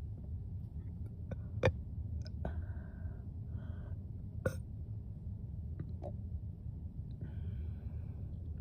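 A woman's three short, small burps, forced up from the gas of chugged sparkling water while she tries to burp on command. Sharp clicks fall between them, the loudest about a second and a half in, over a steady low rumble.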